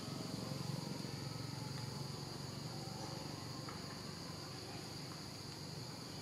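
Steady, high-pitched drone of an insect chorus that does not break, over a low steady rumble.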